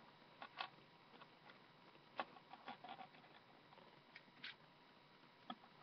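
Faint, scattered light clicks of coins and plastic Lego pieces being handled as the coins are gathered into a small Lego box, the sharpest click a little after two seconds in.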